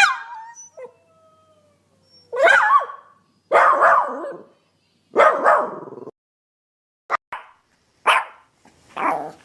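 Dogs barking in a string of separate clips: a sharp yelp falling in pitch, a faint thin whine, then about five single barks with short silent gaps between them, each cut off abruptly.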